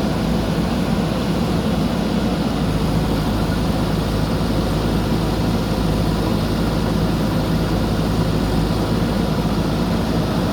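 JCB backhoe loader's diesel engine running steadily at a constant speed, a loud even drone with no revving.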